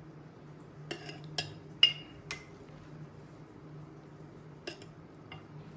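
Metal spoon clinking against glass while cooked vegetable salad is spooned from a glass bowl into a glass jar: a quick run of four or five clinks between about one and two and a half seconds in, one of them ringing out loudest, then two fainter clinks near the end.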